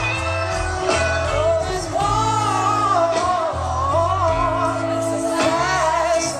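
Live band playing a slow country-soul ballad, a female singer holding long, wavering notes over bass and guitar, heard from within the audience.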